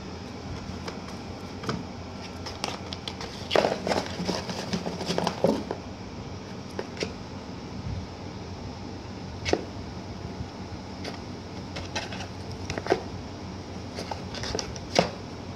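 A cat pawing and shifting about inside a cardboard box: scattered scrapes and taps on the cardboard, busiest about four seconds in, with a few sharper single taps later, over a steady background hum.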